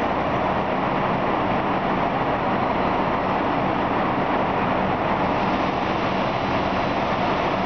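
Steady rumble and hiss of diesel multiple-unit passenger trains idling at the platforms, with one creeping in slowly, under the enclosed station roof. There is a faint low hum throughout.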